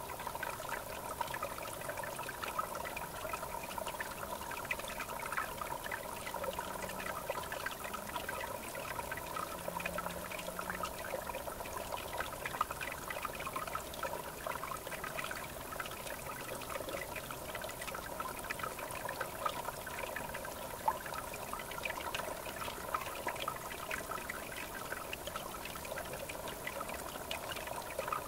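River water flowing steadily, with a continuous babbling trickle.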